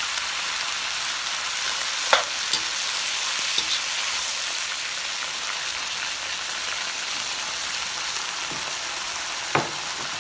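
Onion and bell peppers sizzling in hot oil in a wok on high heat, a steady frying hiss. A few sharp clinks of the metal skimmer against the wok cut through it about two seconds in and again near the end.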